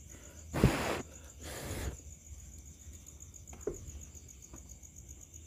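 A cricket trilling steadily in the background, a fine, even high-pitched pulse. About half a second in and again a second later come two short bursts of rustling noise, the loudest sounds here.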